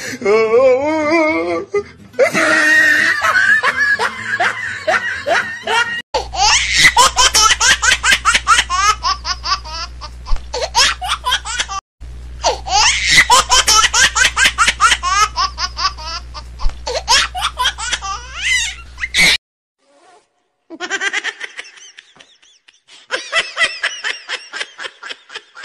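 Laughter sound effects dubbed over the footage: repeated bursts of laughing, with one laugh clip played twice back to back over a low hum. It cuts off sharply, and after a short gap more laughing follows.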